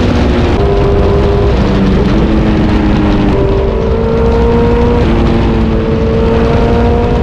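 Motorcycle engine and exhaust running at road speed, its pitch creeping up slowly and stepping down sharply a couple of times.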